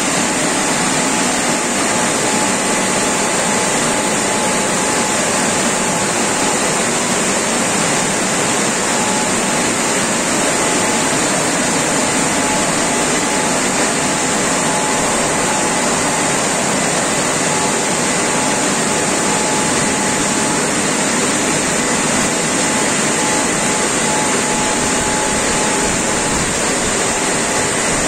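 Automatic roll-over car wash gantry running: a loud, steady whoosh with a faint steady whine.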